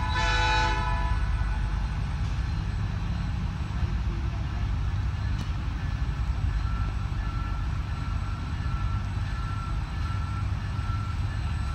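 Low, steady rumble of a slow-moving freight train pulling a heavy multi-axle flatcar. A short pitched sound in the first second, and a faint beep repeating about once a second from about halfway through.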